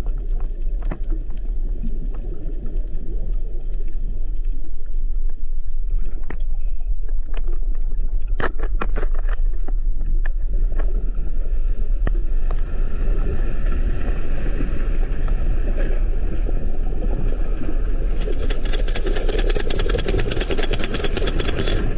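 Deep rumble of a magnitude 7.2 undersea earthquake, heard underwater, with scattered sharp clicks. In the last few seconds a dense, fast crackle joins it as sediment billows up from the seabed.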